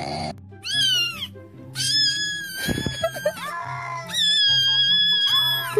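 High-pitched wailing cries from a cat meme sound effect, standing in for a crying baby: a short falling cry, then long drawn-out cries, the last one held steady, over background music with a steady bass line.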